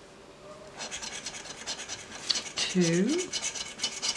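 Coin scratching the coating off a lottery scratch-off ticket: rapid back-and-forth rasping strokes starting about a second in.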